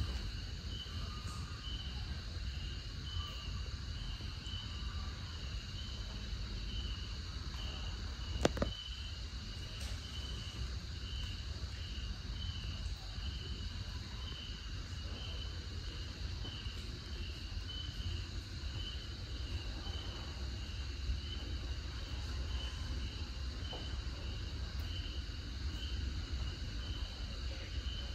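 Insects chirping steadily, a regular pulsing call about once a second over a low steady rumble, with one sharp knock about eight seconds in.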